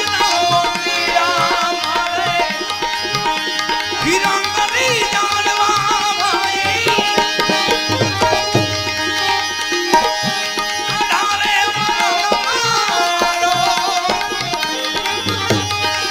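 Gujarati devotional bhajan music: a tabla plays a running beat under held instrument tones and a melody that glides up and down.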